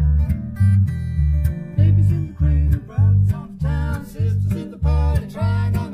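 Acoustic blues: a fingerpicked acoustic guitar with an electric bass guitar playing notes about twice a second, and a man and a woman singing together from about two seconds in.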